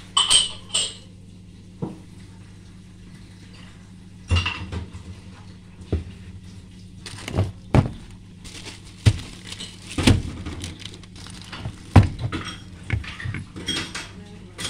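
Kitchen dishes and utensils being handled, with irregular knocks and clinks at uneven intervals over a steady low hum.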